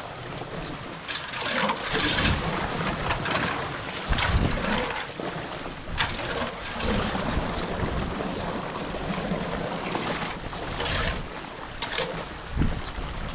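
Floodwater rushing and splashing into a cleared storm drain, with irregular louder surges and splashes.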